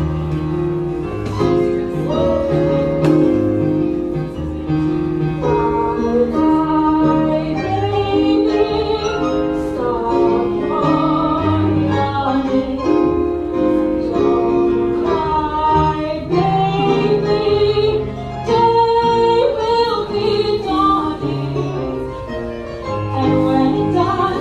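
Music with singing over a walking bass line and held chords.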